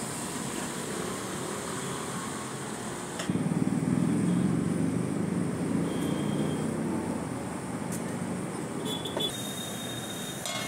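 Food sizzling on a hot iron tawa over steady background noise; about three seconds in the sizzling suddenly gets louder as the wet, steaming gravy cooks, then slowly eases. Near the end a metal spatula clicks and scrapes on the griddle.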